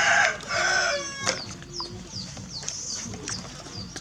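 Animal calls: two loud, harsh calls in the first second, then short, high, falling chirps repeated every fraction of a second.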